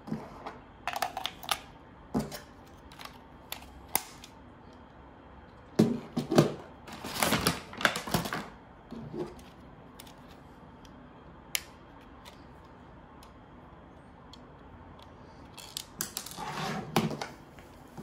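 Scattered clicks and rattles of hard plastic being handled: the battery cover of a toy RC helicopter's remote being put back on and a small screwdriver working its tiny screw. The busiest clatter comes in the middle and again near the end.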